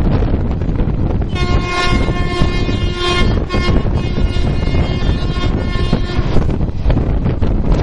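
Train horn sounding one long steady blast of about five seconds, with a brief dip partway, over the steady rumble of the moving train and wind on the microphone.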